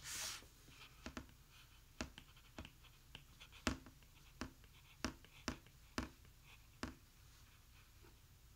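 A stylus tip tapping and sliding on a tablet's glass screen while a word is handwritten: about a dozen sharp, irregularly spaced taps, with faint scratching between them and a brief hiss at the start.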